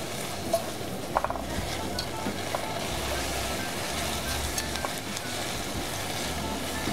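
Small dried anchovies sizzling as they stir-fry in chili seasoning in a pan, tossed and scraped with a silicone spatula. Two sharp knocks of the spatula on the pan come in the first second or so.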